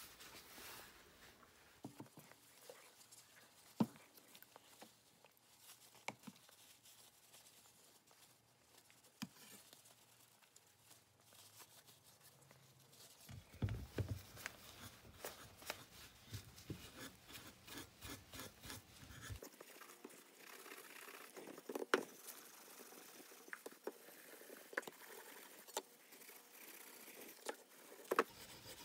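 Faint rubbing and scrubbing of a wooden shovel handle with a pad and stripping gel, with scattered light clicks and knocks from handling. A run of quick rubbing strokes comes about halfway through, and two sharper knocks are the loudest sounds later on.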